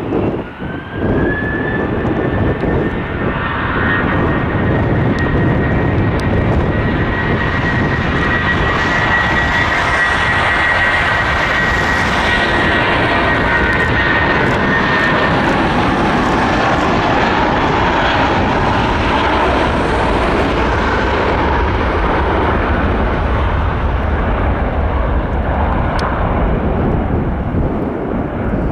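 Airbus A320's twin jet engines spooling up to takeoff thrust and running at full power through the takeoff roll. A high fan whine rises in pitch over the first couple of seconds and then holds over a steady loud roar.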